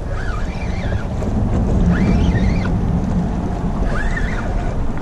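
Wind buffeting the microphone over water, a steady low rumble. Three short high chirps rise and fall through it, about two seconds apart.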